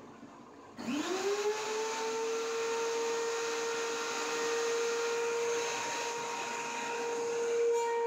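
DeWalt DW735 thickness planer switched on about a second in, its motor and three-knife cutterhead, still fitted with the old straight high-speed steel blades, spinning up with a quickly rising whine and then running steadily with no board in it. It is loud: about 85 dB on the meter.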